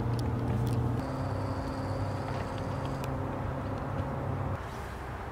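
Steady low mechanical hum, like a motor or engine running nearby. It shifts abruptly about a second in and drops in level near the end, with a few faint clicks over it.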